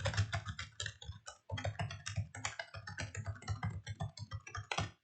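Typing on a computer keyboard: a rapid, uneven run of keystrokes with a brief pause about a second and a half in and a louder keystroke near the end.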